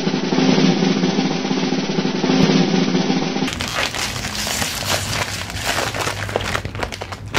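Snare drum roll sound effect that cuts off abruptly about three and a half seconds in. The rest is the crinkling and tearing of a candy's plastic wrapper being pulled open by hand.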